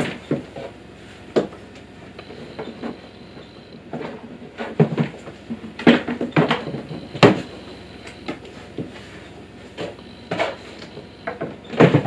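Hard plastic knocks and clicks from the parts of a Kärcher KNT 4 shop vacuum being handled and fitted together: the motor head set onto and lifted from its container. They come scattered and separate, the loudest about seven seconds in.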